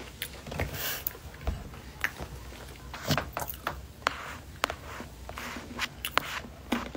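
Close-up crunching of a crisp hazelnut wafer chocolate being chewed, with irregular sharp crackles.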